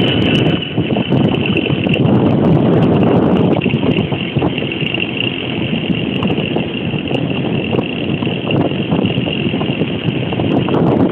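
Motorbike engine running steadily on the move, with wind rushing over the microphone.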